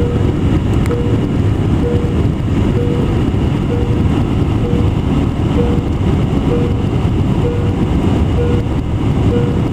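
A short electronic beep repeating about once a second, over the loud steady rumble of the airliner cabin. It is a fault in a cabin system that the crew could not reset.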